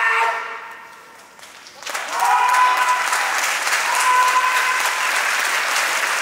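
Audience applauding a finished karate kata, the clapping breaking out about two seconds in and continuing steadily, with a voice calling out over it. At the start, a single loud call fades away.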